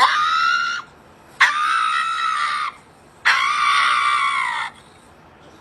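Three long, high-pitched screams, each lasting about a second, with short pauses between them.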